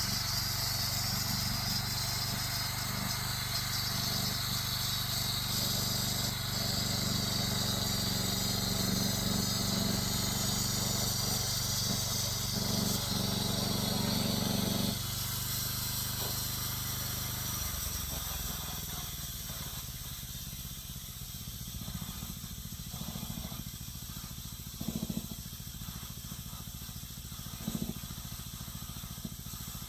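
Home-built band sawmill's motor running steadily during its first cut through a black walnut log, with a hiss over it. About halfway through, the motor's note drops away in two steps, leaving a steady hiss and a couple of short knocks.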